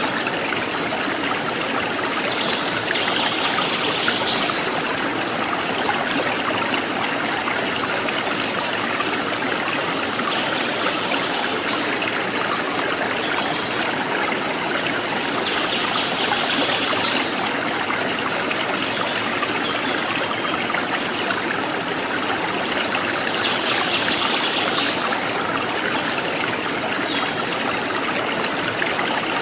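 Forest stream trickling and splashing steadily over rocks. A brief high-pitched sound rises above the water three times, a few seconds apart.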